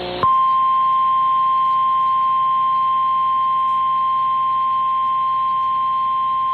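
An Emergency Alert System broadcast alert: a buzzy digital header burst cuts off a quarter second in. A single loud, steady attention tone follows, the National Weather Service's 1050 Hz warning alarm, announcing a severe thunderstorm warning.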